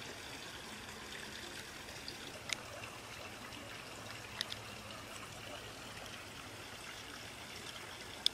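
A few faint clicks of small plastic camera-mount parts being handled and fitted together, about two and a half and four and a half seconds in, over a steady background hiss.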